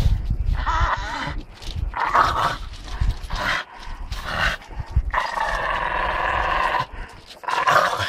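Dogs growling in repeated bursts while gripping and tugging a rag tied to a hanging branch, with one long growl about five seconds in, over low thuds as the branch is jerked.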